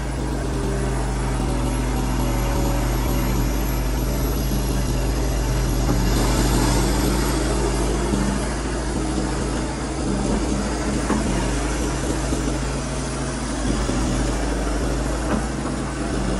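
Kobelko SK200 excavator's diesel engine running steadily under working load as the boom and arm dig and swing a bucket of wet earth, heard from the operator's cab. It grows somewhat louder for a few seconds around the middle, while the loaded arm is raised.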